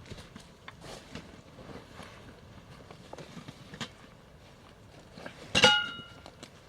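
Light knocks and rustling of hands-on work, then a sharp metallic clang about five and a half seconds in, ringing briefly with several clear tones as a struck metal object does.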